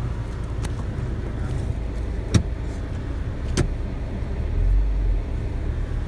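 Steady low rumble of a car driving, heard inside the cabin, with two sharp knocks about a second apart midway and a deeper swell of rumble near the end.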